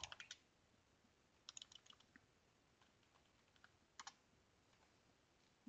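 Faint computer keyboard keystrokes: a few clicks at the start, a quick cluster about one and a half seconds in, then scattered single taps and a pair of clicks about four seconds in.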